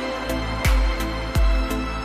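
Background music with a steady beat: a deep bass drum about every 0.7 seconds under held notes.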